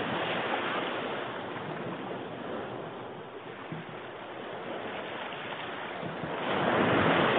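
Small waves washing onto a sandy beach, a steady rushing wash that swells louder about six and a half seconds in.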